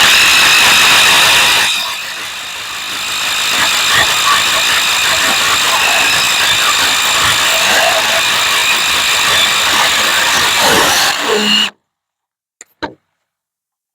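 Power drill running steadily for about twelve seconds as it drills, easing briefly about two seconds in, then cutting off suddenly; a few short clicks follow.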